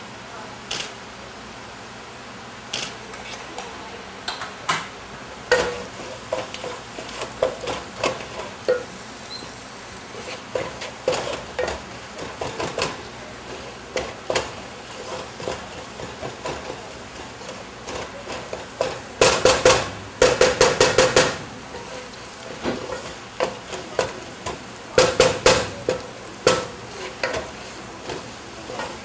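A spoon stirring and scraping the frying onion and spice base in a pan, with scattered knocks against the pan over a low steady sizzle. Two quick runs of rapid clattering come about 19 and 25 seconds in.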